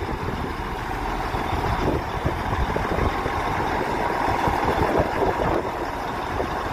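Diesel engine of a rail utility track vehicle (UTV, a track-maintenance rail vehicle) running steadily as it rolls slowly along the track past the platform.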